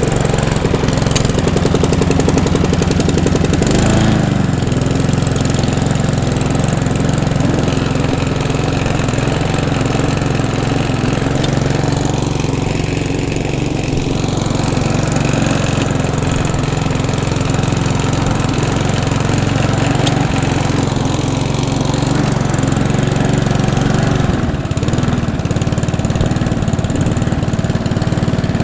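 Mountfield petrol lawnmower engine, just pull-started, running at a steady speed. Its note shifts briefly about four seconds in and again about twenty-four seconds in.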